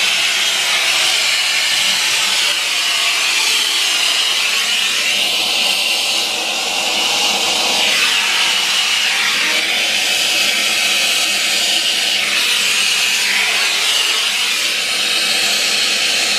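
Plumber's soldering torch burning with a steady, loud hiss while heating a copper water-pipe joint for a solder repair; its tone shifts slowly.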